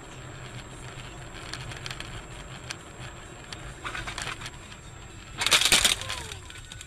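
Steady road noise inside a moving car picked up by a dashcam, then, about five and a half seconds in, one loud crash of a vehicle collision lasting about half a second.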